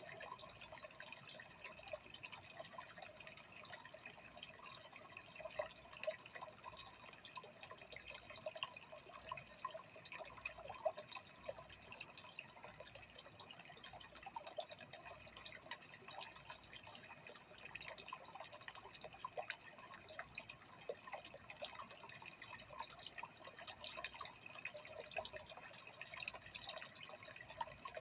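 Faint, continuous trickling and dripping of aquarium water: a dense patter of small drips and splashes with no pauses.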